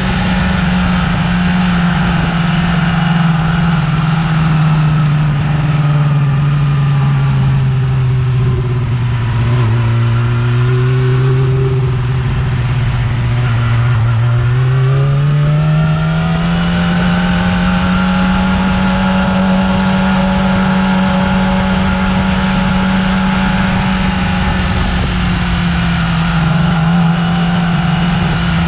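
Yamaha R6's inline-four engine on its stock exhaust running steadily. Its pitch sinks slowly over several seconds, rises again about halfway through, and then holds steady, as when easing off and getting back on the throttle while riding.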